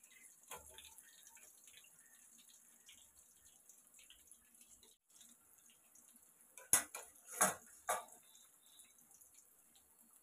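Battered baby corn deep-frying in hot oil in a steel kadai: a steady high sizzle with small crackles. About two-thirds of the way through come three sharp knocks, louder than the sizzle.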